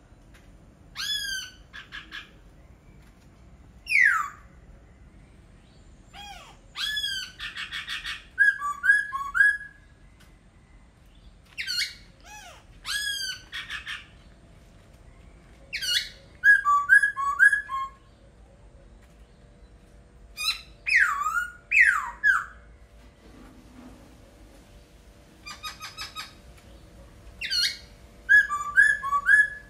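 A laughingthrush (khướu) singing: loud, clear whistled phrases, some swooping sharply down in pitch, alternating with quick runs of short chattering notes, a new phrase every few seconds.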